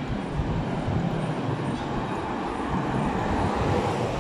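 City road traffic: a steady rumble and hiss of passing vehicles, getting louder near the end as one comes close.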